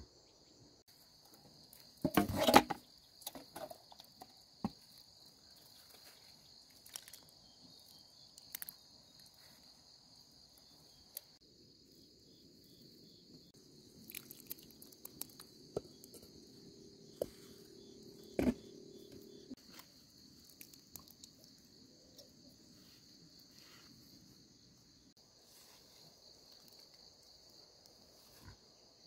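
Steady chirring of insects, with scattered light knocks and one loud clatter about two seconds in. In the middle, water is poured from a container onto the soil at the base of a garden plant for several seconds.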